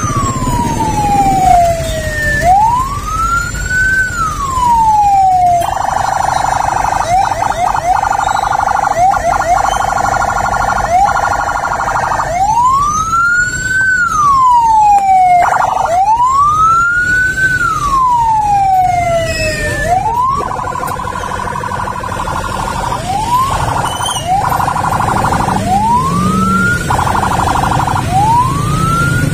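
Ambulance siren wailing, each slow rise and fall taking about three and a half seconds. Twice it switches for several seconds to a rapid pulsing tone. Low traffic rumble underneath.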